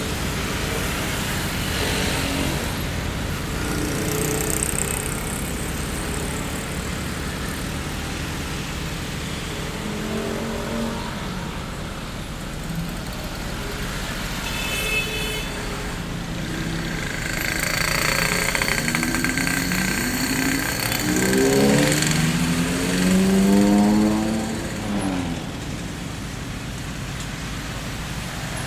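Street traffic: a steady rumble of passing vehicles. In the second half one vehicle pulls away close by, its engine rising in pitch several times as it speeds up, the loudest part.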